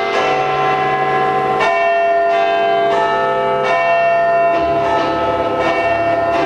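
Church bells ringing, with fresh strikes every second or two whose notes ring on and overlap.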